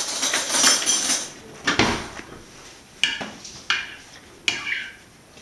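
Kitchen clatter: a noisy rattle for about the first second, then a few separate sharp clinks of a utensil against a glass bowl as crushed canned tomatoes and spices are mixed together.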